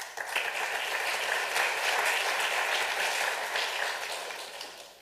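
Audience applauding: the clapping starts suddenly, holds steady, and dies away near the end.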